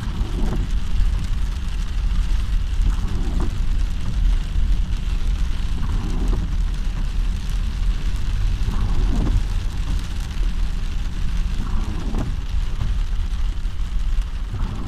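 Heavy rain pelting a car's windshield and roof, heard from inside the car over a deep, steady rumble. A short swishing sweep comes back about every three seconds.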